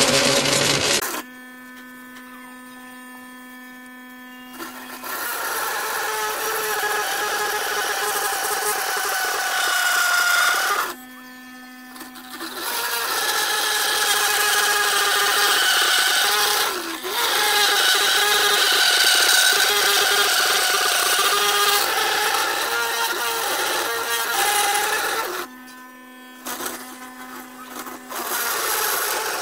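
Home-made plastic cutter, a motor-driven motorcycle sprocket, grinding into a plastic enclosure box pressed against its spinning teeth: a loud harsh rasp over a motor whine that wavers under the load. Twice the cut lets off and only the motor's steady, quieter hum is left, before the grinding starts again.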